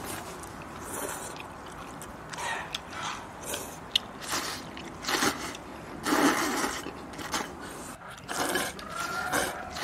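People slurping long glass noodles into their mouths, a series of irregular wet sucking slurps, the loudest about six seconds in.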